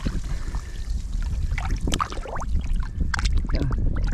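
Water splashing and gurgling in irregular bursts around a barramundi held by its lower jaw at the boat's side, as it is swished through the water to revive it before release.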